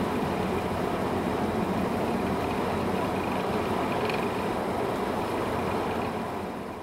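Steady road and engine noise inside a car driving on a snow-covered road, fading out near the end.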